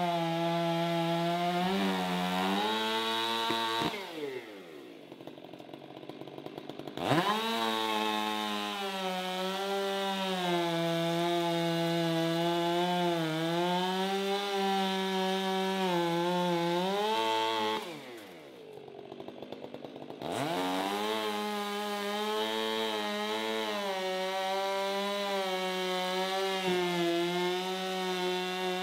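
Gas chainsaw cutting through a stack of pine slabs, its pitch wavering as it bogs and recovers under load. Twice, about four seconds in and again near eighteen seconds, the engine drops back toward idle and is then revved sharply back up into the cut.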